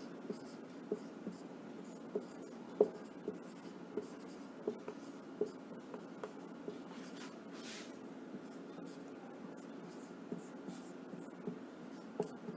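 Marker pen writing on a whiteboard: faint, irregular taps and short strokes as letters are drawn, over a steady low room hum.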